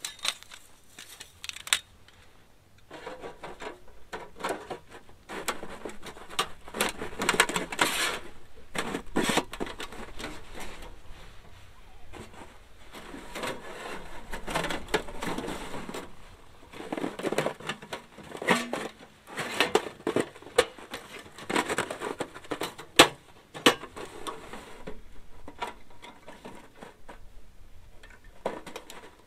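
Thin sheet-metal panels of a flat-pack tent stove clinking, scraping and clattering as they are fitted together by hand, in irregular bursts with sharp clicks. The panels are warped and won't slot together.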